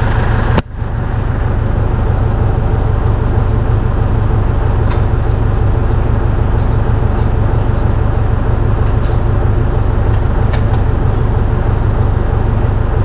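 Tractor engine running steadily, with a brief break in the sound about half a second in and a few faint clicks later on.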